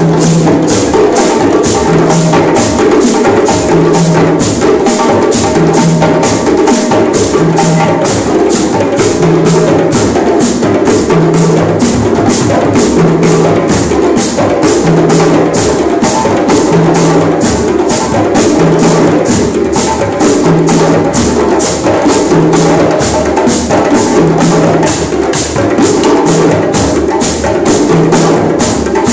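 A group of djembe hand drums played together in a steady, fast rhythm, about three strokes a second, with a low bass note repeating about every two seconds.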